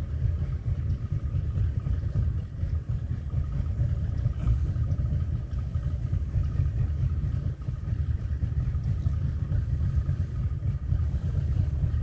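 Boat motor running steadily, a low rumble with a faint steady whine above it.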